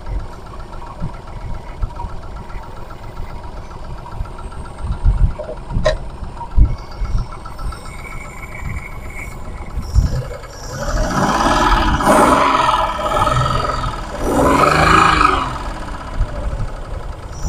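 Perodua Kancil's small three-cylinder petrol engine idling with an uneven low pulsing, run so the newly replaced camshaft oil seal can be checked for leaks. About ten seconds in there are two louder stretches whose pitch rises and falls.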